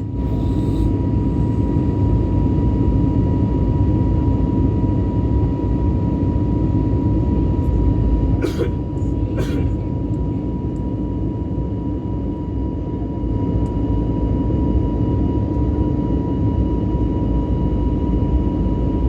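Airbus A320neo cabin noise in flight: a steady low rumble of engines and airflow with a thin constant whine above it. The noise steps up slightly at the start, and two faint clicks come about halfway through.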